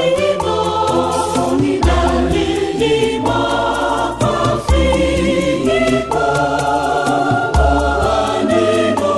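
Background music with voices singing over a deep bass note that returns about every three seconds.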